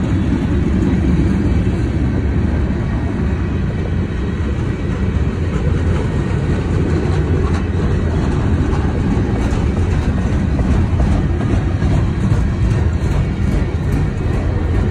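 Freight train of flatcars loaded with heavy military vehicles rolling past close by: a steady, loud rumble of steel wheels on the rails.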